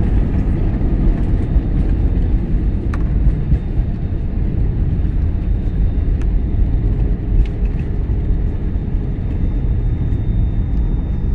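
Steady, loud rumble of an airliner in motion, engine and airflow noise, with a faint steady high whine and a few faint clicks.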